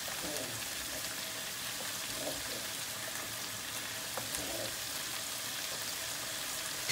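Pot of meatball and vegetable stew in tomato sauce simmering with a faint steady hiss, stirred gently with a wooden spoon, giving a few soft scrapes and one small click about four seconds in.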